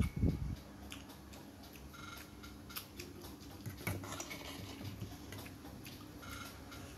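A person chewing a mouthful of food close to the microphone: a few louder bursts in the first half second, then soft chewing with scattered small mouth clicks.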